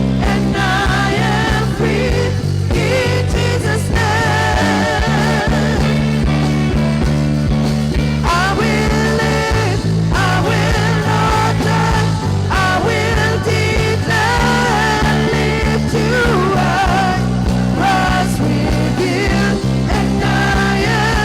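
Live worship music: a band playing sustained chords that change every few seconds, with voices singing a wavering melody over them.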